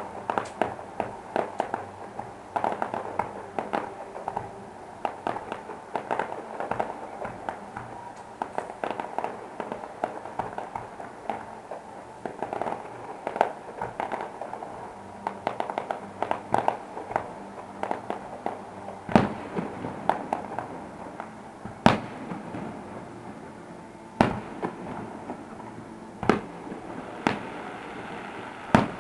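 Aerial fireworks shells bursting in the distance: a rapid run of crackling reports, thinning out about two-thirds of the way in to a handful of louder single bangs a couple of seconds apart.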